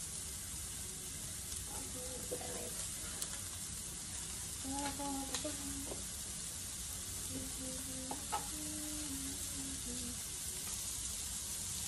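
Sliced vegetables (cabbage, onion, carrots, mushrooms) frying in oil in a nonstick skillet, a steady sizzle.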